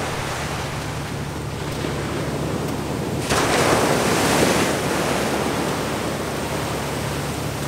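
Ocean surf breaking and washing up the beach, a steady rushing noise that grows louder about three seconds in.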